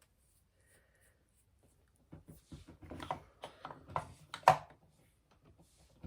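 Makeup and its containers being handled: a run of small clicks, taps and rubbing, the loudest a sharp click about four and a half seconds in.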